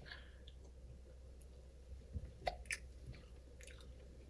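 Faint chewing of mango mochi ice cream, with a few soft mouth clicks and smacks, mostly two to three seconds in.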